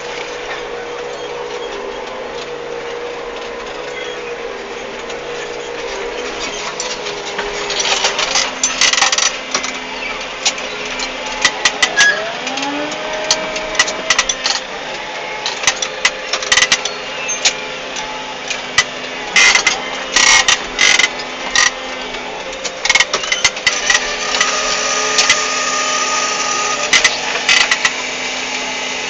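Case IH CVX 160 tractor engine running steadily while ploughing, with repeated sharp clattering knocks from about eight seconds in.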